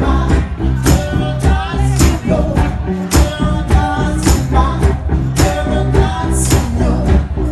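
Live blues-rock music: a harmonica played cupped against a handheld microphone, wailing and bending notes over a steady beat of about two hits a second.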